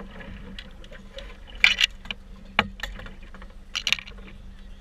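Sharp clacks and light rattles of fishing tackle and hardware being handled in a boat, with three louder knocks spread through, over a steady low hum from the boat's motor.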